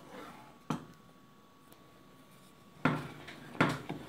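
Wooden spoon stirring thick, thickening brigadeiro in a nonstick pan, scraping the bottom and knocking against the pan. There is a sharp knock under a second in, a quiet stretch, then louder scraping strokes near the end.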